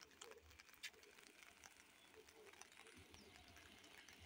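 Near silence: faint outdoor ambience with a few scattered faint ticks.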